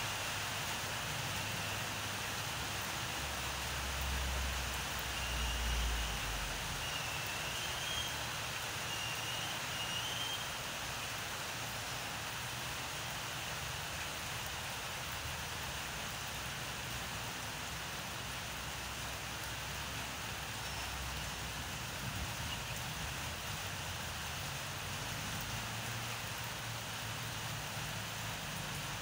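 Steady outdoor background hiss, with a low rumble for a couple of seconds about four seconds in and a few faint high chirps.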